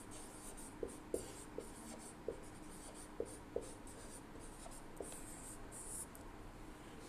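Marker pen writing on a whiteboard: faint scratching strokes with several short squeaks as the letters are drawn.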